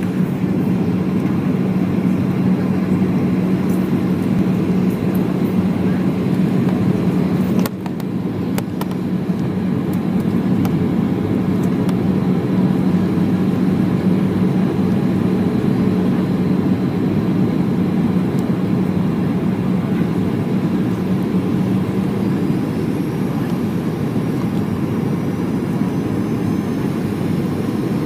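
Cabin noise inside a Boeing 737-800 on approach: a steady rush of airflow with the hum of its CFM56 jet engines. A low drone runs under it and fades out about two-thirds of the way through, and the level dips briefly about eight seconds in.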